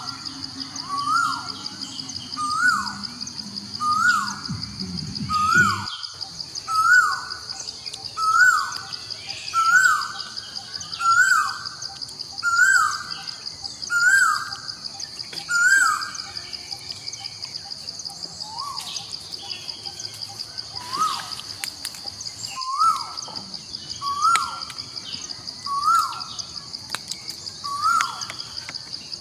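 Forest ambience: a bird repeats a short falling call about once a second, pausing for a few seconds past the middle before starting again, over a steady high-pitched insect drone. A low rumble underneath cuts off suddenly about six seconds in.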